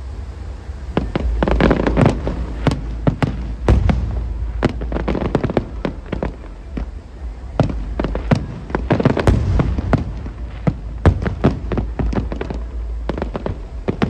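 Fireworks display: aerial shells bursting in rapid volleys of sharp bangs and crackles, over a steady low rumble.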